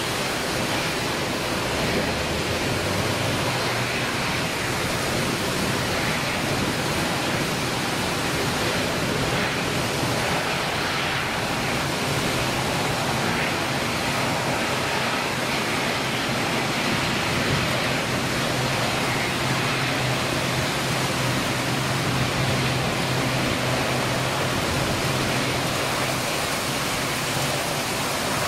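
Steady hiss of heavy rain. Under it, the low steady hum of an ATR 72's turboprop engines comes through more plainly from about halfway, as the plane touches down on the wet runway.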